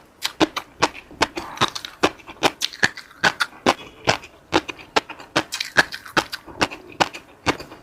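A person eating close to the microphone: chewing with a quick, uneven run of sharp clicks and smacks, several a second.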